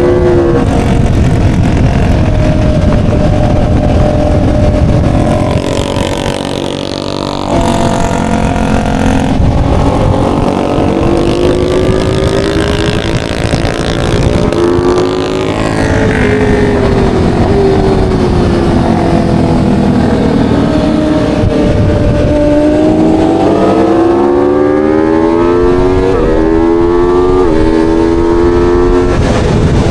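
Aprilia Tuono V4 motorcycle's V4 engine at speed on track, with a constant low rush of wind. The engine pitch falls and rises with the throttle and dips briefly about six seconds in. Near the end it climbs in several quick steps as it revs up through the gears.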